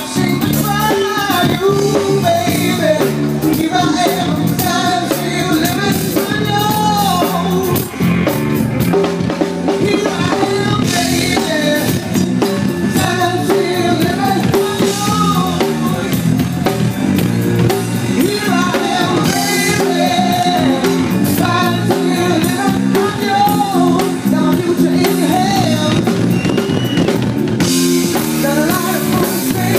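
A singer performing a song with a live band, the drum kit clearly heard under the vocal melody.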